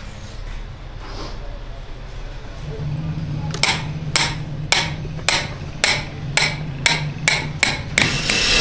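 A hammer striking repeatedly: about ten sharp blows at roughly two a second, starting about three and a half seconds in, over a low steady hum.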